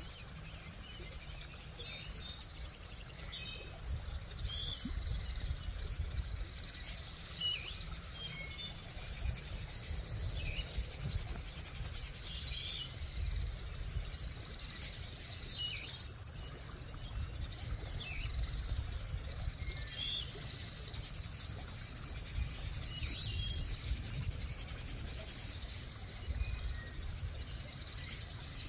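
Outdoor ambience of birds chirping, short calls scattered every second or two, over a low steady rumble.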